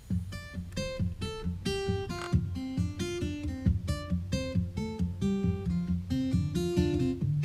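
Background music: acoustic guitar picking a quick run of notes over a bass line.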